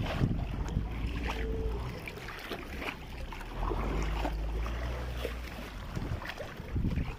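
Water churning as a load of fish is released into a river, over a low steady motor hum, with occasional knocks.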